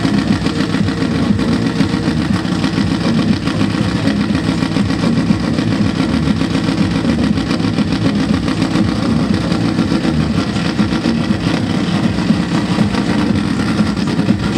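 Supertwin Top Fuel drag bike's big V-twin engine running loud and steady at idle, without revving.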